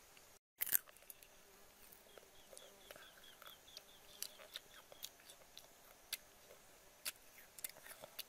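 Faint crisp clicks and crunches of sliced green mango being dipped in sauce and eaten, the loudest a sharp click just under a second in. A bird chirps a quick run of short high notes from about two to four seconds in.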